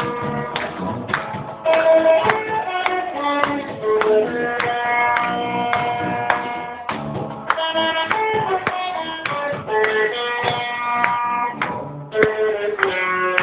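A small band playing instrumental music: a run of plucked string notes with some longer held melody notes over a beat.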